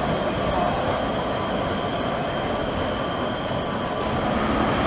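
Articulated low-floor tram running past on street track: a steady rumble of its wheels on the rails, with a thin, steady high-pitched squeal over it.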